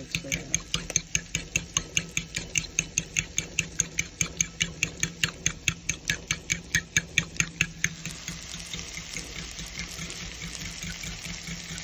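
A utensil beating eggs in a bowl, clinking against the side in a quick, even rhythm of about five strokes a second. About eight seconds in it gives way to the steady sizzle of diced Dominican salami frying in a pan.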